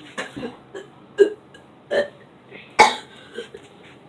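A boy gagging and retching on a foul mixed drink: a string of about seven short, sudden heaves, with quiet between.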